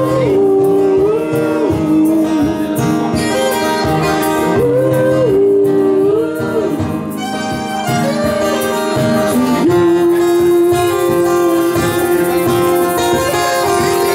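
Live acoustic band playing: harmonica, violin and acoustic guitars together, the lead melody in long held notes that slide between pitches, with one long held note from about ten seconds in.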